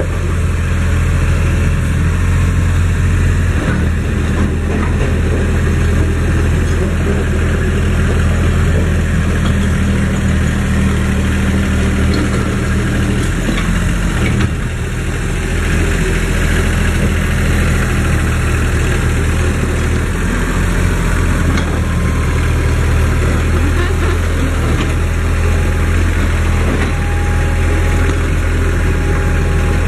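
Kubota KH11-H mini excavator's engine running steadily at idle, with a brief dip about halfway through. A faint steady whine joins in during the second half.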